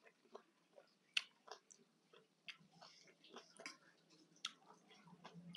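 Close-miked chewing of crunchy shredded green papaya salad: faint, irregular crisp crunches and small wet mouth clicks.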